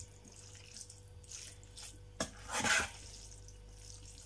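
A utensil stirring cooked pasta and stewed meat in an enamel pot: a few soft, wet swishes, with a light knock of the utensil against the pot about two seconds in.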